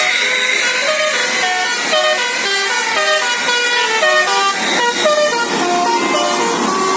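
Bus telolet 'basuri' musical horn playing a quick tune of short stepped notes, over steady street noise.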